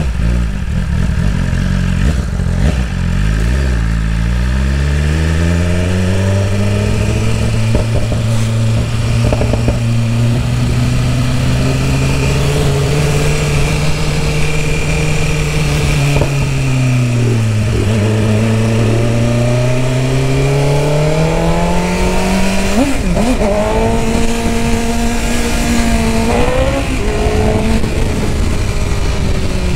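BMW S1000RR's inline-four engine under way with its exhaust end can removed. The revs climb over the first few seconds, hold, dip and climb again around the middle, with quick jumps in pitch near the end.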